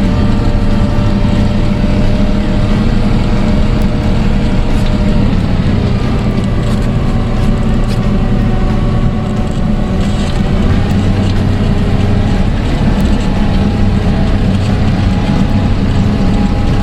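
SHERP all-terrain vehicle's diesel engine running steadily under way, a loud continuous drone whose pitch wavers slightly.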